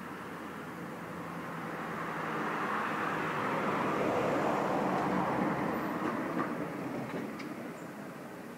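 A vehicle passing by: a rushing noise that swells to a peak about four to five seconds in, then fades away.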